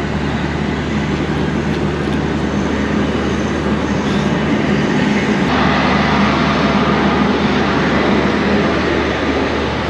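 Steady low engine hum of a standing passenger train, with a rushing noise that grows louder about halfway through.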